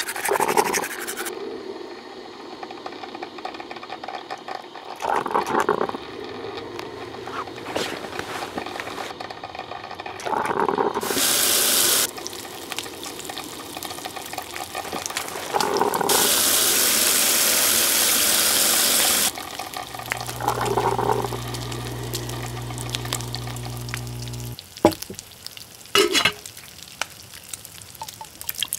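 A string of household sounds: running water and a drip coffee maker hissing as it brews, with short rough bursts every few seconds. A steady low hum comes in a little after the middle, and two sharp clicks come near the end.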